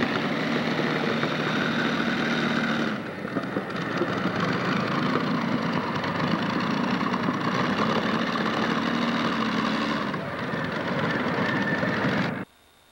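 Multi-engine modified pulling tractor's engines running steadily. There is a cut to a second tractor about three seconds in, and the sound cuts off suddenly near the end.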